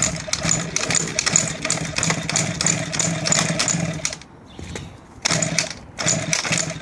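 KTM 50 Senior mini dirt bike's two-stroke engine sputtering roughly, then dying about four seconds in. It fires briefly twice as it is kicked over again. The rider takes it to be a little flooded.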